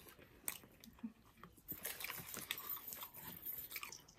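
Faint close-up chewing and wet mouth sounds of someone eating a burrito: a scatter of soft clicks and smacks.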